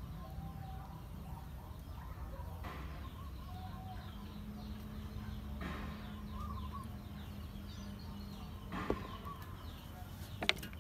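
Outdoor ambience of birds chirping over a low rumble and a faint steady hum, with two sharp clicks near the end as a metal ladle knocks against a steel mixing bowl.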